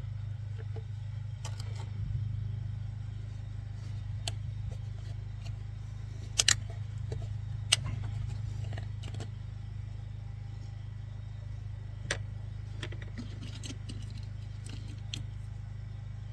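Motor oil being poured from a bottle through a funnel into the engine's fill port: scattered light clicks and knocks from handling the plastic bottle and funnel, several times, over a steady low hum.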